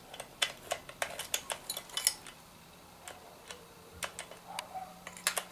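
Light, irregular metallic clicks and taps as a flat steel spanner is worked onto an angle grinder's spindle and flange nut, steel knocking against steel.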